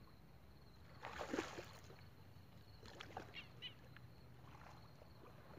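A hooked carp splashing at the water's surface during the fight: one short burst of splashing about a second in, then only faint small splashes.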